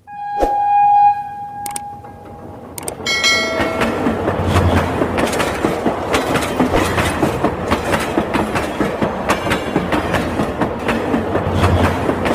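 A train horn sounds in one long, steady note, with a short second blast about three seconds in. After that comes the continuous rapid clickety-clack of a train running over rail joints.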